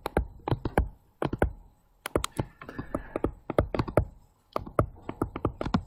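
Stylus tapping and clicking on a tablet screen as words are handwritten: an irregular run of sharp clicks with a few brief pauses.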